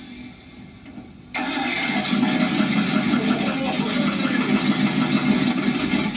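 Freshly rebuilt V8 engine running loud with a fast pulsing beat, coming in abruptly a little over a second in after a quieter stretch.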